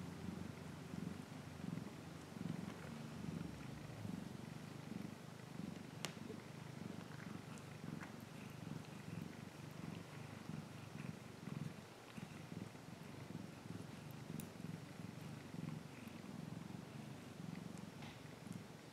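Maine coon mother cat purring steadily while nursing her kittens, a low purr that swells and fades with each breath. A single faint click about six seconds in.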